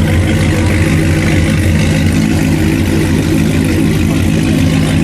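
Car engine idling loudly and steadily close by, a deep even drone with no revving.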